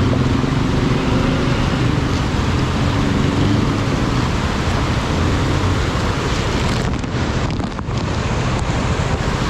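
Motorcycle engine running over the steady rush of a swollen river. The engine tone is clear in the first half and fades about halfway through.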